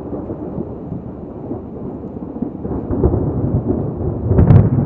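Thunder rumbling from a supercell thunderstorm, swelling about three seconds in and loudest near the end with a brief sharp crack.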